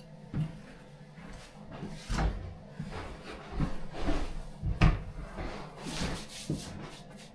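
Irregular knocks and bumps, with the loudest a little before five seconds in.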